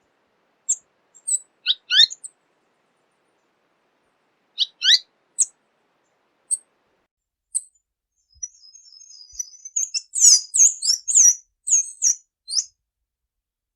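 Tanager calling: sharp, high chirps that drop quickly in pitch, given singly a second or more apart, then from about eight seconds in a faster twittering run with a thin high trill under loud chirps.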